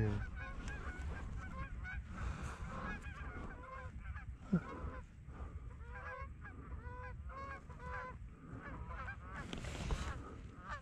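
Flock of Canada geese (honkers) honking as they come in overhead: many overlapping calls from several birds, repeated irregularly.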